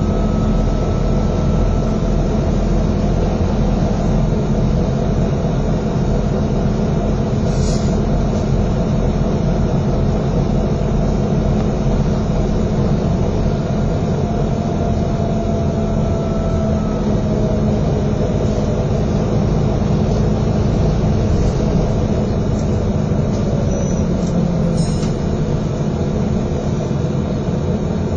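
Inside a moving East Yorkshire single-route bus: a steady engine drone and road rumble, with faint whines sliding up and down in pitch and a couple of small clicks.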